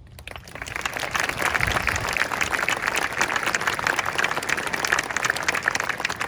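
Audience applauding, a dense patter of many hands clapping that swells up over the first second and then holds steady.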